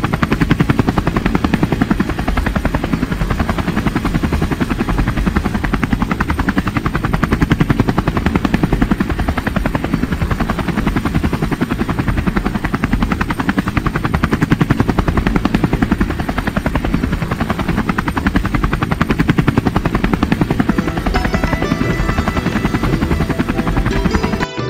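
Helicopter main rotor chopping with its turbine running, a fast, even beat that holds steady.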